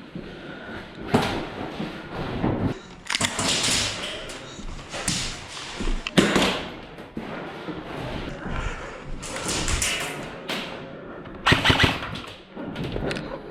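Irregular thumps and short sharp bursts of noise from airsoft game action, the loudest about a second in, about six seconds in and near the end.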